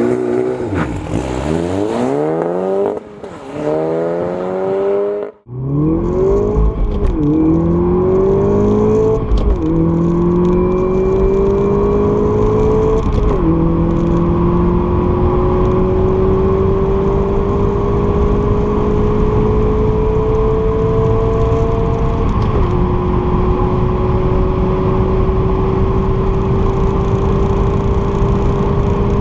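Audi S1's turbocharged 2.0 TFSI four-cylinder engine revving up and down at a launch, then, after a sudden break about five seconds in, pulling hard at full throttle through the six-speed manual gearbox. The engine note climbs in each gear and drops back at four upshifts, each gear pulling longer than the last.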